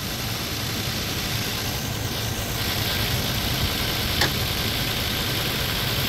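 Car engine idling with the air conditioning running. A steady hiss comes in about two and a half seconds in, and there is one short click a little past four seconds.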